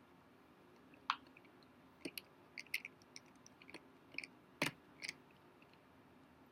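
Faint scattered clicks and ticks of a small precision screwdriver working tiny screws into an old white MacBook's case, about a dozen over four seconds, the sharpest one about four and a half seconds in.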